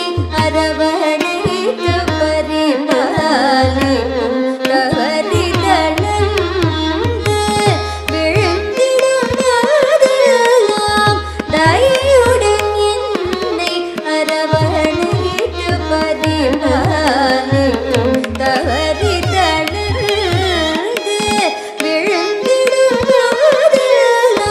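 Carnatic devotional song in raga Begada: a young woman's voice singing gliding, ornamented phrases with violin, over the low, repeated strokes of a mridangam.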